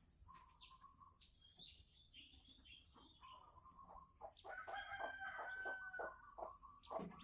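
Red junglefowl calling, faint: a few short falling chirps, then a louder call of about two seconds with a held pitch broken into rapid pulses.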